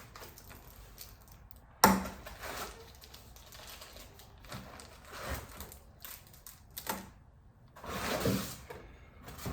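Unboxing handling of a coffee grinder's parts and packaging: a sharp knock about two seconds in, then scattered rustles and soft clunks as pieces are lifted and set down.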